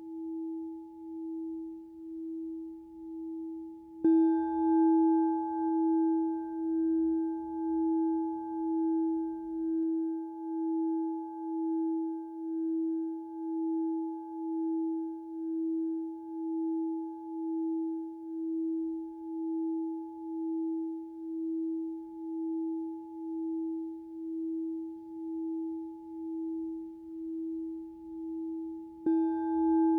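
A singing bowl rings in one low, steady tone that wobbles slowly, about once a second. It is struck again about four seconds in and once more near the end, and each strike briefly brings out brighter overtones.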